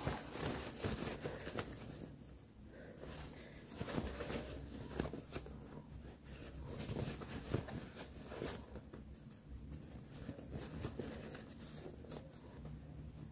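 Cotton pillowcase fabric rustling and crumpling faintly in the hands, with small irregular scuffs, as it is turned right side out.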